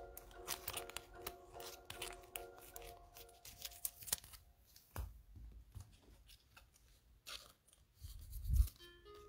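A Panini Prizm trading-card pack's foil wrapper being torn open and its cards handled, crinkling and rustling in quick ticks for the first four seconds or so, over faint background music. A soft thump about five seconds in and a louder low thump near the end.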